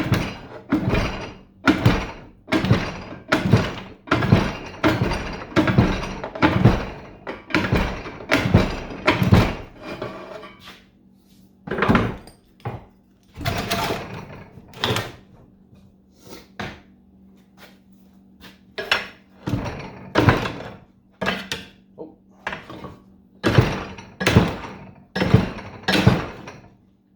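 Repeated blows struck on a stuck part of a cast-aluminium gearbox housing to knock it loose, each sharp and briefly ringing. A quick run of about a dozen strikes fills the first ten seconds, then after a pause come further groups of blows. A faint steady hum runs underneath.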